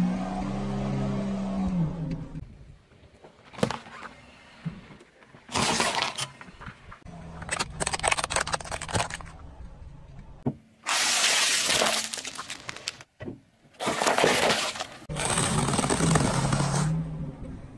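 A car tyre rolling slowly over small objects and crushing them: a series of separate crunching, cracking and breaking bursts, one crush after another, with a low wavering hum near the start and again near the end.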